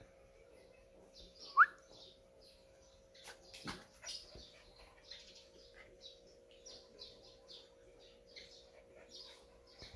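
Small birds chirping over and over in short high notes, with one short, loud rising squeak about one and a half seconds in, over a faint steady hum.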